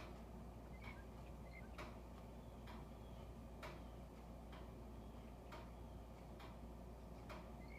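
Faint, even ticking, about one tick a second, over a low steady hum.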